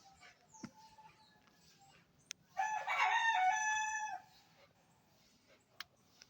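A rooster crows once, a loud call of about a second and a half starting about two and a half seconds in. Faint chirping of small birds continues around it.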